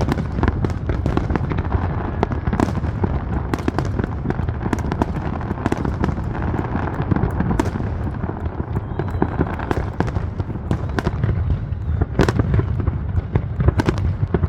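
Fireworks display: a dense, continuous run of bangs and crackles over a steady low rumble, with a cluster of louder bangs near the end.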